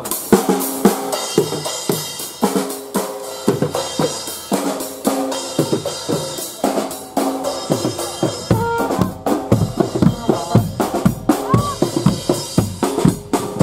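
Marching band playing: a drum kit with snare and bass drums beats a steady, busy rhythm while brass horns (trumpets, trombones, saxophones) play held notes over it. The band strikes up at the very start.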